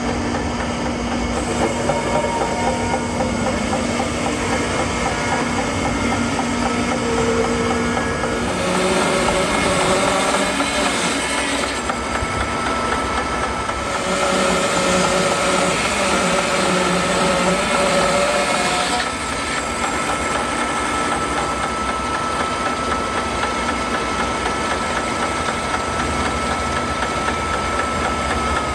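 Sawmill running and cutting through a walnut log, a steady mechanical noise with a thin high whine; the cut grows louder about eight seconds in and eases back a little later on.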